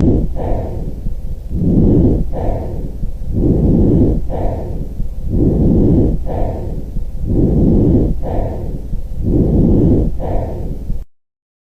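Lung breath sounds heard through a stethoscope, presented as normal lung sounds. About five even breath cycles, each a longer, louder phase followed by a short, softer one, over a steady low hum; the sound cuts off suddenly near the end.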